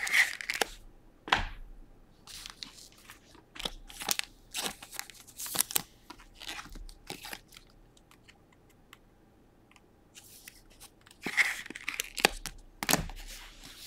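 Baseball trading cards handled by hand: short scratchy slides and rustles of card against card in irregular bursts, with a quiet stretch about two-thirds of the way in.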